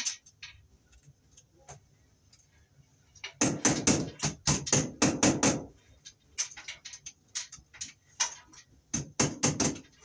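Hammer tapping a push-in Romex cable connector into the knockout of an electrical box until it snaps in. Quick sharp taps come in bursts: a rapid run of about four a second starting a little over three seconds in, a few scattered single taps, then another quick run near the end.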